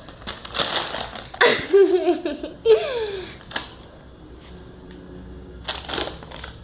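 Plastic bag rustling and crinkling in short bursts as cats play in and with it, with two brief falling vocal sounds in the first half.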